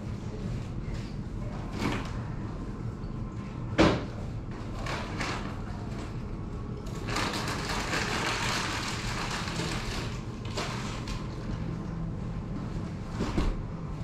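Household handling noises as a person moves about a room: scattered knocks and bumps, the sharpest about four seconds in, and a few seconds of rustling in the middle. A steady low hum runs underneath.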